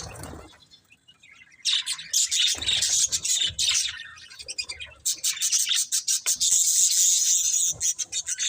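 Budgerigars chirping and chattering in quick high twitters, in two busy spells with a short lull about four seconds in.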